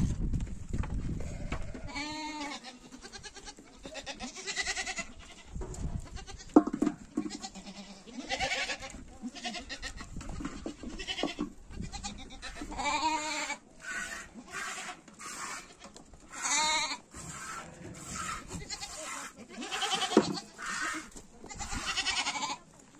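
Goats bleating again and again, separate calls of differing pitch through the whole stretch, with two sharp knocks, one about six seconds in and one near the end.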